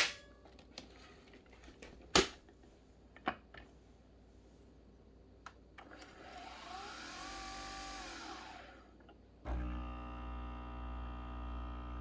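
Nespresso Virtuo coffee machine starting a brew: a few clicks of handling the machine, a soft whir that rises and falls in pitch about six seconds in, then from about nine and a half seconds a steady motor hum with a low drone as the machine begins brewing.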